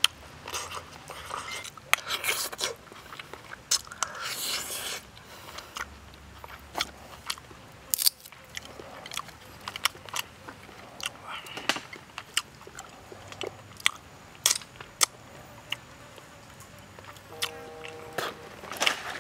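Close-up eating sounds: a man chewing and smacking mouthfuls of steamed fish and noodles, with many short clicks and scrapes of a plastic spoon and chopsticks against the plate and a small cup.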